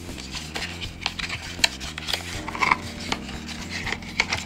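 Cardboard packaging rubbing and scraping as small nail-polish bottles are worked out of their box, with scattered clicks and taps throughout.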